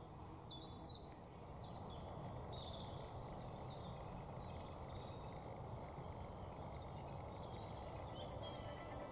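Small songbirds singing: a run of quick, high, falling whistles in the first second and a half, then brief twittering phrases, with a few more near the end. Beneath them lies a steady low background rush.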